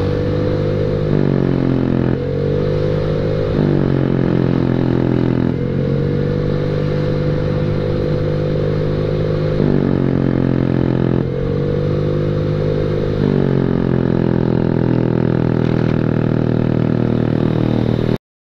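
Honda Beat scooter's single-cylinder four-stroke engine through a cheap WRC 'mber' aftermarket exhaust, giving a loud, blaring note under way. The pitch climbs about four times as the throttle opens and settles back as it eases. It cuts off suddenly near the end.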